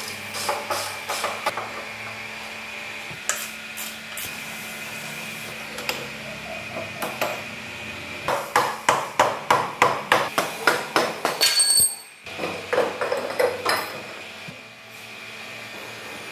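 Hammer blows on motorcycle parts in short runs of taps, the longest a quick series of about four strikes a second lasting a few seconds midway, over a steady background hum.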